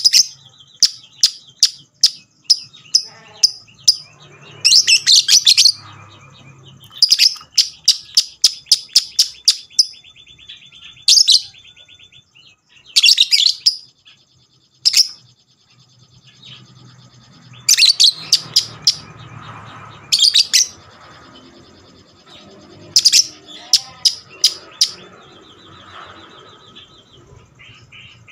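Lovebird ngekek: long runs of loud, sharp, rapid high-pitched chirps, coming in repeated bursts with a fast trilling chatter between them.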